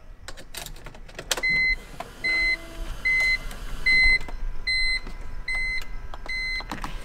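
A run of about eight short, identical electronic beeps, roughly one every 0.8 seconds, with a few clicks at the start and near the end.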